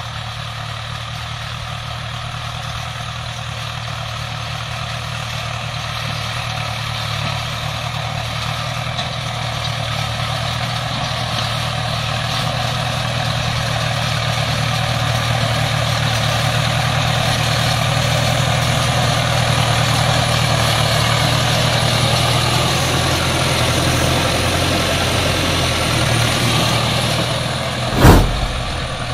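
Tractor engine running steadily, growing louder toward the middle and easing off again, with one sharp knock just before the end.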